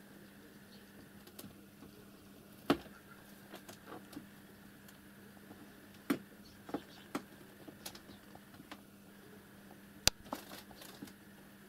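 Scattered light clicks and knocks at irregular intervals, a few sharper than the rest, as a cat noses and shifts about on top of a cardboard box. A faint steady hum lies underneath.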